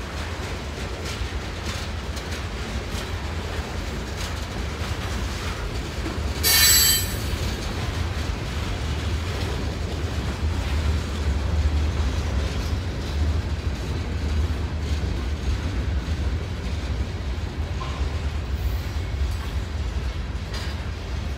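Freight cars of a manifest train rolling past with a steady rumble and light clicking of wheels over the rails, and a brief high-pitched wheel squeal about six and a half seconds in.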